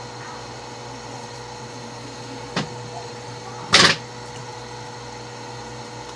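A steady low electrical hum, with a sharp click about two and a half seconds in and a louder, brief clatter a little over a second later.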